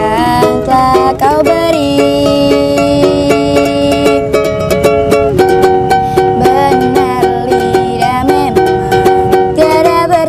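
A song played on plucked string instruments: quick plucked strumming under a melody of long held, slightly wavering notes.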